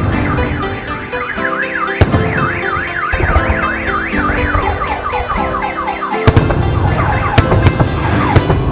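Car alarm wailing in a fast up-and-down warble, then switching about six seconds in to a run of quick falling tones. Sharp bangs and crackles of an overhead fireworks display sound throughout.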